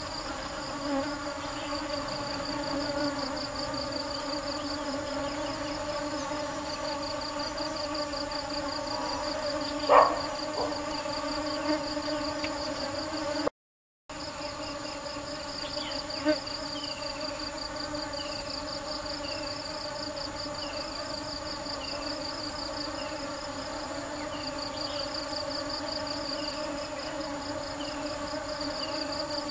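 Honeybees buzzing in a steady drone, with a high pulsing trill running above it. A sharp knock comes about ten seconds in, the sound drops out for a moment near the middle, and short falling chirps repeat through the second half.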